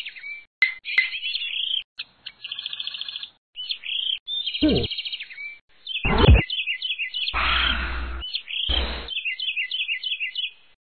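Birdsong chirping over and over as the cartoon's background ambience. Partway through come two quick falling pitch sweeps, the second louder and deeper, then two short rushing noises with a low rumble.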